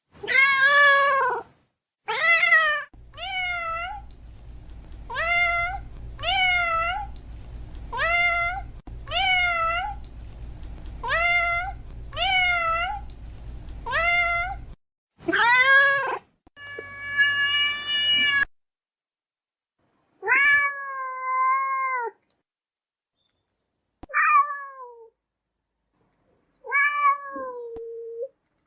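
Domestic cat meowing again and again: a quick run of short meows about one a second over a low steady hum, then a few longer, separate meows with silence between them.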